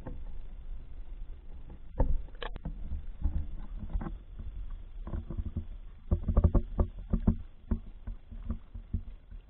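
Water splashing and sloshing against an action camera's waterproof housing as it breaks the surface of a canal and bobs at the waterline, over a low rumble. A sharp splash comes about two seconds in, and a quick run of knocks and splashes falls around six to seven seconds.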